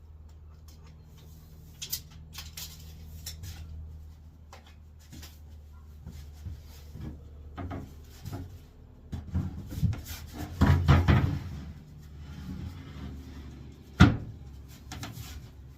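Workshop handling noises: scattered knocks and clatter, a louder, busier stretch about two-thirds through, and one sharp knock near the end, over a steady low hum.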